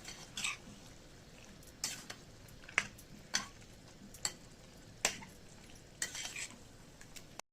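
Chicken frying in a pan with a steady sizzle, stirred with a metal spoon or spatula that clinks and scrapes against the pan about once a second.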